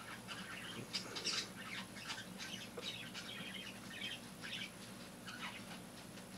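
Soft, irregular rustling and crinkling of tissue wrapping as fingers work it back from a packed tarantula.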